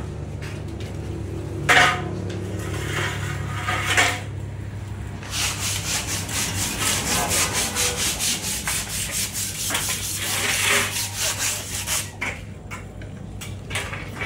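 Aluminium profiles knocked and rubbed together while being fitted: two sharp knocks in the first few seconds, then a fast, rhythmic scraping for several seconds.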